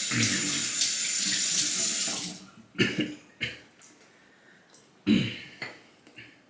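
Bathroom sink tap running steadily, shut off about two seconds in, followed by a few short water splashes.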